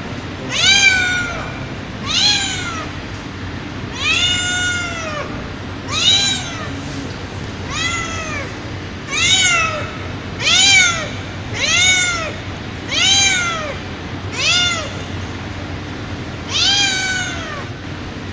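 A mother cat meowing over and over, about eleven drawn-out meows that each rise and then fall in pitch, spaced a second or two apart: her call to her kittens.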